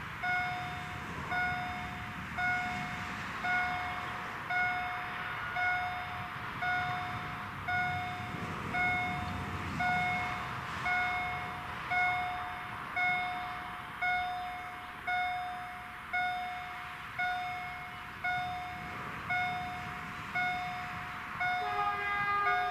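GZT 30 electronic warning gong of a Polish level crossing striking about once a second, each stroke a sharp ding that fades, warning that the crossing is closing and the barriers are coming down. Near the end a train horn sounds over it.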